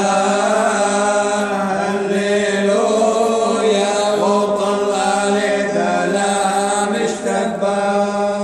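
Voices chanting a Syriac liturgical hymn in church, an ornamented melody that slides between notes over a steady held low drone note.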